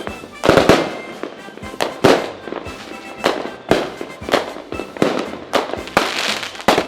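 Fireworks going off: a run of loud bangs roughly every second, each trailing off in a crackle.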